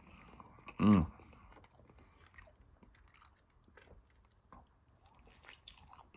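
A man chewing a mouthful of pizza, with faint wet smacks and clicks of the mouth. About a second in comes one short, loud hummed "mm" through closed lips, the loudest sound.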